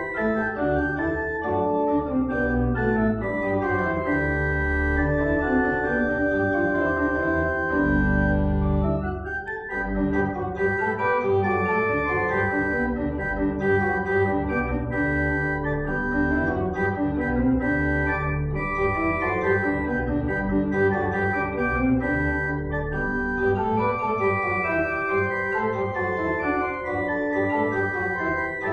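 Church organ playing a slow piece of sustained chords, with a deep bass swell about a third of the way in.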